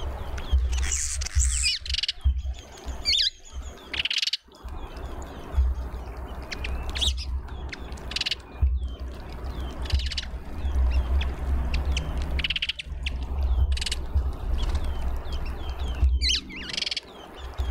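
Small songbirds chirping and calling repeatedly, with brief, brighter flurries every second or two, over a steady low rumble.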